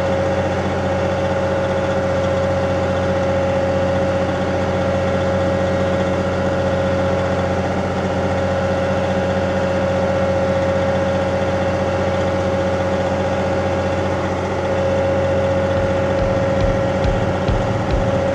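Compact tractor's diesel engine running at a steady speed, its pitch holding constant. A low pulsing beat comes in near the end.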